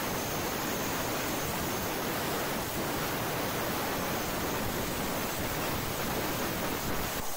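CNC plasma cutter torch cutting half-inch AR500 steel plate, a steady hiss of the arc and its air stream.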